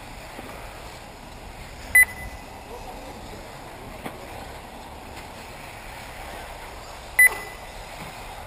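Two short, loud electronic beeps about five seconds apart from the race's lap-timing system, each marking a buggy crossing the timing line, over a steady outdoor hiss.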